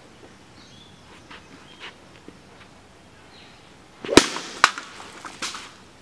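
A quick swish and a sharp whack of a wooden stick striking something about four seconds in, followed by two lighter knocks.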